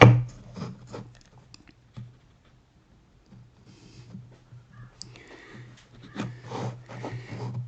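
Pencil scratching layout lines on a wooden board against a square, with a few light knocks as the square is set down.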